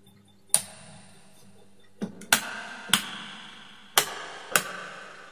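A miniature circuit breaker snapping on, then the rocker switches of double wall light switches clicking on, six sharp clicks in all, each leaving a brief ring.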